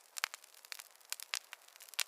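Fireplace fire crackling: irregular sharp pops and snaps, several a second, over a soft hiss.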